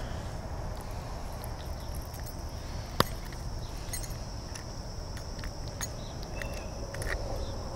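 Steady high-pitched chirring of insects over a low outdoor background hum. A few faint clicks are scattered through it, and one sharp click comes about three seconds in.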